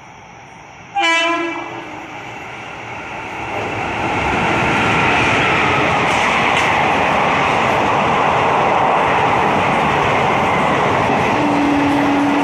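WAP-4 electric locomotive's horn sounding one loud blast about a second in, then the train passing through the station at speed with the steady loud running noise of wheels on rails. A shorter, lower horn note sounds near the end.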